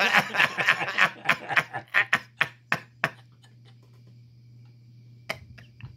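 Laughter in short repeated bursts that die away about three seconds in. A steady low electrical hum remains, with a single sharp click near the end.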